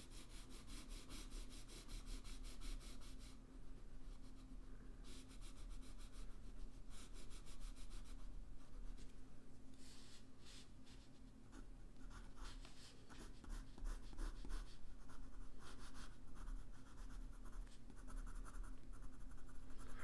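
Blue colored pencil scratching on paper in runs of quick, short strokes, with brief pauses between the runs.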